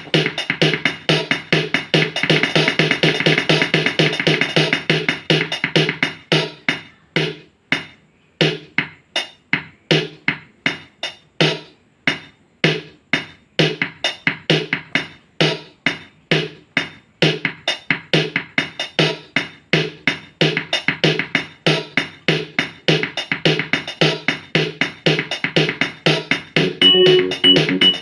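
Casio HT-3000 synthesizer keyboard playing its built-in drum-machine rhythm with Casio Chord auto-accompaniment chords, a steady even beat. Near the end, held notes come in over the rhythm.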